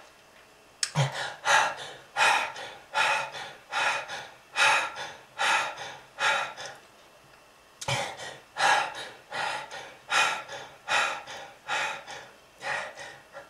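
A person gasping for breath over and over, harsh noisy breaths about one every two-thirds of a second, in two runs of about eight with a short pause between them around seven seconds in.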